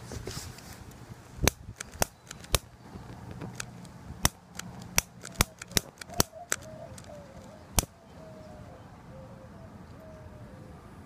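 Repeated sharp clicks of a long-nosed butane lighter's igniter being pressed over and over, about ten clicks in the first eight seconds, then the clicking stops and the lighter is burning.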